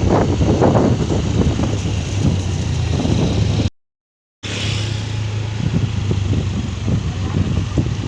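Vehicle engine running steadily with road and wind noise, as heard from a moving vehicle. The sound cuts out completely for under a second about four seconds in, then resumes.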